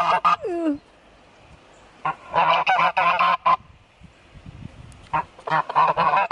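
Two white domestic geese honking noisily in three bouts of rapid, repeated honks, each about a second and a half long and a couple of seconds apart. The geese are approaching people they seem to expect food from.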